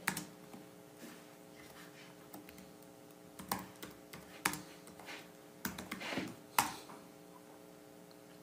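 Computer keyboard keystrokes, pressed slowly one at a time with irregular gaps as a search is typed, over a faint steady hum.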